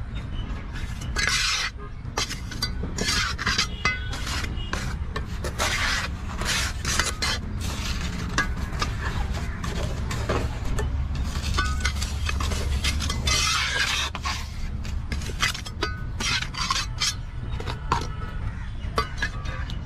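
Steel trowel scooping and scraping damp concrete mix and rubbing it flat across the top of a balustrade mould: a run of short gritty scrapes, over a steady low hum.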